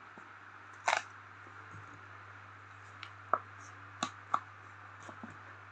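Cardboard animal puzzle pieces being handled and lifted out of their slots: a handful of light taps and clicks, one about a second in and several more in the second half, over a steady low hum.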